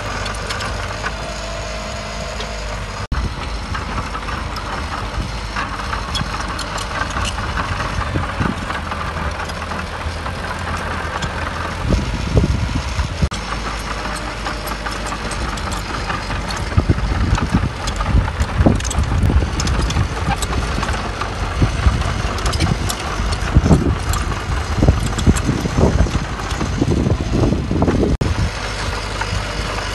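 Heavy diesel earthmoving machinery running steadily. From about the middle on it is broken by repeated irregular heavy knocks and thuds.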